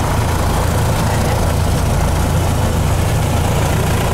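Single-engine light aircraft's piston engine and propeller running steadily at low power on the ground, heard loud inside the cabin as a constant low hum.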